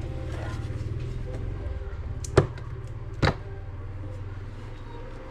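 A steady low hum, with two sharp knocks a little under a second apart near the middle.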